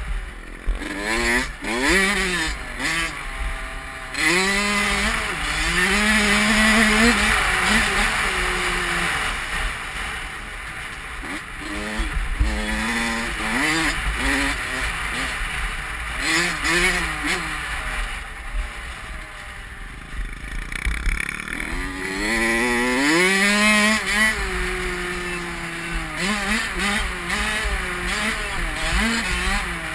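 Dirt bike engine revving up and down through the gears, its pitch climbing in repeated sweeps and falling back, easing off about two-thirds of the way through before climbing again. Wind rushes over the helmet-mounted microphone.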